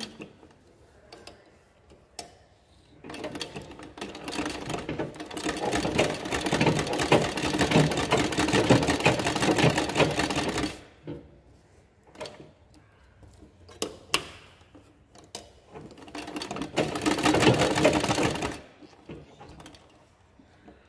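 Flat-bed sewing machine with a roller presser foot stitching through a leather sandal upper, running in two spells: a long run of about eight seconds starting about three seconds in and growing louder as it gets going, then a shorter run of about two seconds near the end. A few light clicks sound in the pauses between.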